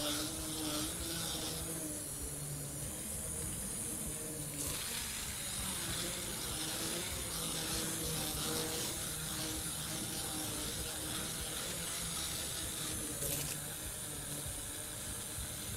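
Electric hand (immersion) blender running in a pot of liquid: a steady whir with churning liquid as starch is blended into the mixture.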